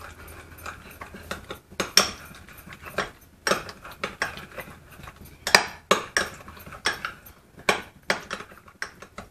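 A metal spoon stirring thick, creamy sauce in a small glass bowl, clinking against the glass in irregular sharp taps about twice a second.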